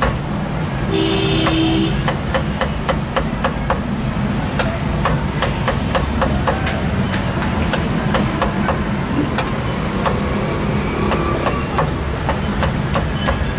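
Meat cleaver chopping cooked meat on a round wooden chopping block: rapid, repeated sharp knocks a few per second, over a steady low rumble.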